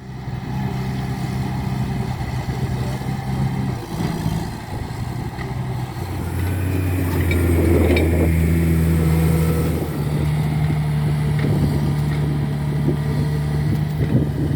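Motor grader's diesel engine running, its pitch stepping down and back up several times as the engine speed changes.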